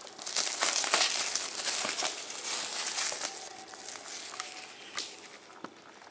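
Plastic shrink-wrap crinkling and crackling as it is pulled off a DVD case, loudest over the first few seconds and then fading. It ends with a few sharp clicks as the plastic case is opened.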